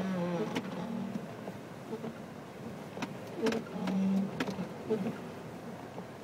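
Car engine running and labouring as the car climbs a snow-covered driveway, heard from inside the cabin, its drone swelling in surges. Several sharp knocks and bumps sound over it.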